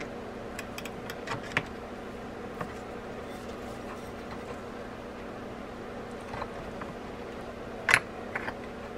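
Small metal clicks of a screwdriver and drag parts being worked inside a Penn Spinfisher V 6500 spinning-reel spool: a few faint ones in the first couple of seconds, and a sharper click about eight seconds in with a smaller one after it. A steady low hum underlies it all.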